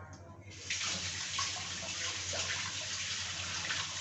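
Paratha sizzling on a hot iron tawa: a steady hiss with fine crackling that starts suddenly about a second in.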